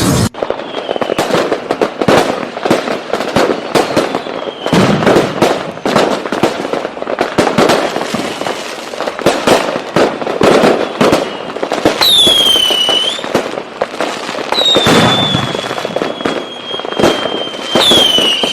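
Fireworks going off in a rapid, continuous string of bangs and crackles. Whistling rockets sound three times in the second half, each a falling whistle, the longest lasting about three seconds.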